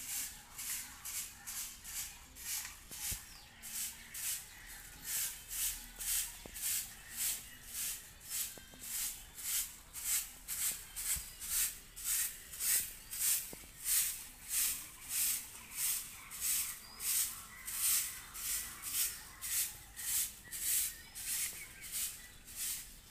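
A broom sweeping bare dirt ground in quick, even strokes, about two swishes a second.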